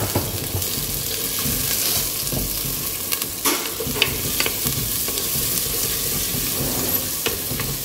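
Sliced onions, carrots and chillies sizzling in hot oil in a clay pot while a wooden spoon stirs them, with scattered short knocks and scrapes of the spoon against the pot.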